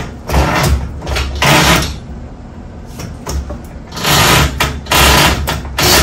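Old garage door torsion spring being slid along its steel torsion shaft and off the end, scraping in about five separate pushes of roughly half a second each.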